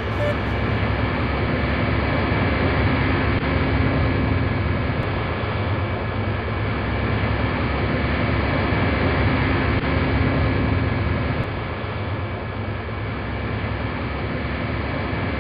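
Steady in-flight drone of a crop-dusting aircraft's engine mixed with wind rush, heard from a camera mounted on the wing.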